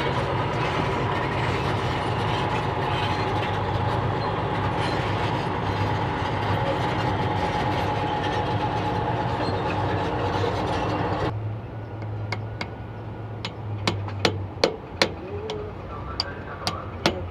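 An engine runs steadily for about eleven seconds, then cuts off abruptly. A low hum follows, and over the last few seconds come a run of sharp, separate hammer taps on metal.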